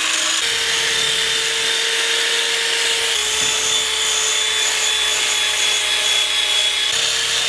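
Drill spinning a small wire brush against the rusty bottom of a cast iron skillet: a steady motor whine over the scratchy hiss of wire bristles scouring off rust that a vinegar soak has loosened. The motor's pitch shifts slightly a few times as the brush is pressed on and moved.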